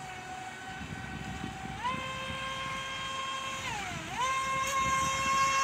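FT011 RC racing boat's 2400 kV brushless electric motor whining under throttle: the pitch climbs and holds high about two seconds in, dips as the throttle eases about four seconds in, then climbs and holds again.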